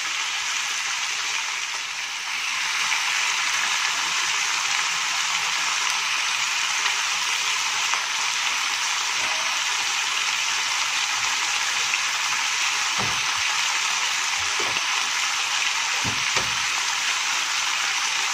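Chicken pieces sizzling steadily as they fry in a little oil in a nonstick wok, being browned before the curry is sautéed. A few soft knocks of metal tongs against the pan come in the second half.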